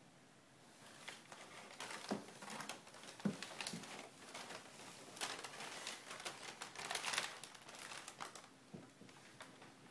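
Brown packing paper inside a cardboard box crinkling and rustling in irregular crackles as a cat moves about beneath it, starting about a second in and dying down near the end.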